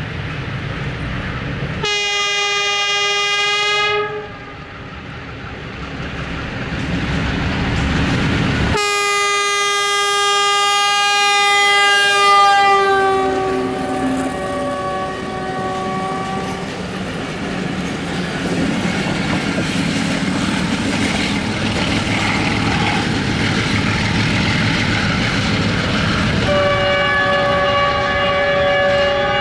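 GRU-20 diesel-electric locomotive sounding its multi-note horn: a short blast about two seconds in, then a long blast whose pitch drops partway through as the locomotive passes. The passenger coaches follow, rumbling and clattering over the rail joints, and another horn blast starts near the end.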